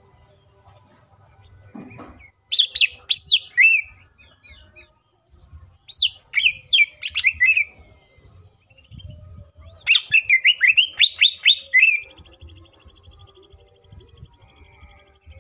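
Caged male greater green leafbird (cucak ijo) singing its varied, imitation-filled song: three loud bursts of rapid sweeping whistled notes, then a faint fast trill near the end.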